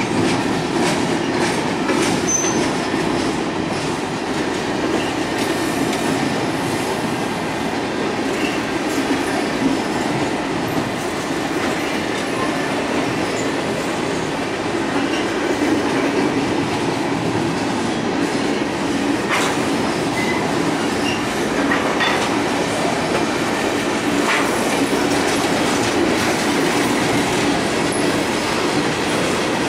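Freight cars rolling steadily past on a steel girder railway bridge: steel wheels clicking over rail joints, with a few faint brief wheel squeals.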